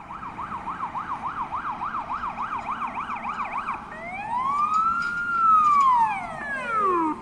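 MAN GBA fire engine's siren on an emergency run, at first a fast warble sweeping up and down about four times a second. About four seconds in it switches to a slow wail, louder, that rises and then falls away, cutting off near the end.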